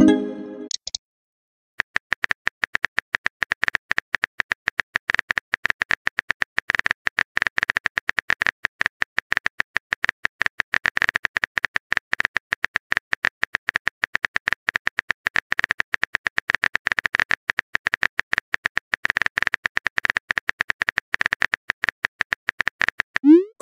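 Simulated phone-keyboard typing: a rapid run of small taps that goes on for about twenty seconds, starting about two seconds in. A short rising pop of a chat message bubble sounds at the very start and again at the very end.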